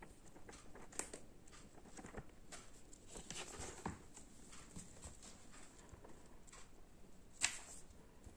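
Faint rustling of paper pages and soft scattered taps as a Persian kitten paws at and bites an open book on a wooden floor. There is a sharper tap about a second in and the loudest one near the end.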